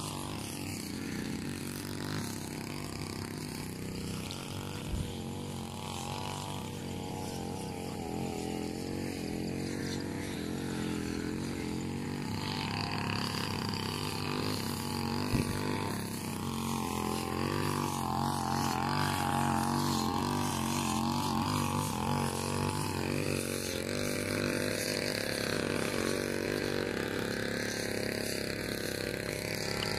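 Background music: a slow Malay-language song with a singer's wavering held notes over a steady backing.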